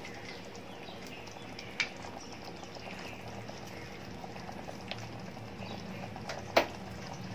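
Chicken curry simmering in a pot, a soft bubbling with many small pops. There are two sharp clicks, one about two seconds in and a louder one near the end.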